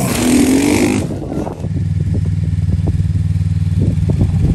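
Sport quad's engine revving, rising in pitch, as it jumps a sand dune. About a second and a half in, this gives way to a steady, low engine idle.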